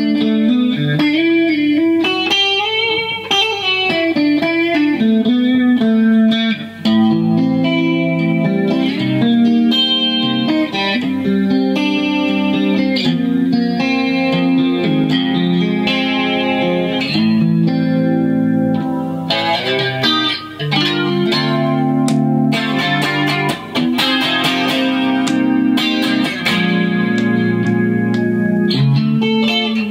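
Fender Player Lead II electric guitar played through an amplifier: a continuous run of picked single notes and chords, with a string bent up and let back down a few seconds in.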